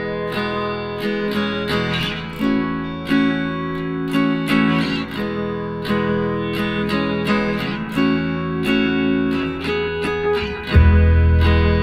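Background music: an acoustic guitar strummed and plucked in a steady rhythm, with a deeper bass line coming in near the end.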